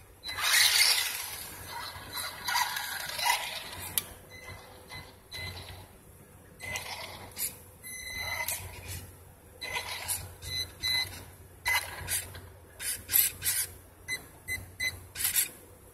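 RC truck's drive motor and gears whining in bursts: one longer run in the first few seconds, then many short stop-and-go blips of throttle, coming quicker in the second half.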